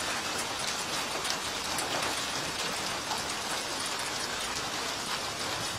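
Heavy hail falling with rain: a dense, steady hiss peppered with many sharp ticks of hailstones striking hard surfaces.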